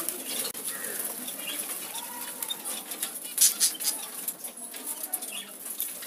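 Pet budgies and cockatiels pecking at raw corn cobs and flapping their wings: a run of irregular, crunchy clicks with wing flutters, a few louder clicks about three and a half seconds in.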